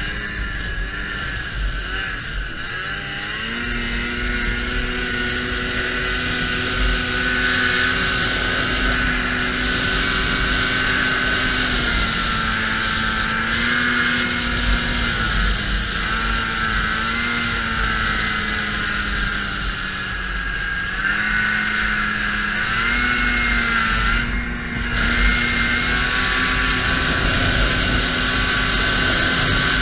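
Ski-Doo Expedition Sport 550F snowmobile's fan-cooled two-stroke twin running at a steady cruise, with a high whine over the engine note. The pitch dips and rises a little twice in the middle and drops briefly near the end, with wind rumbling on the microphone.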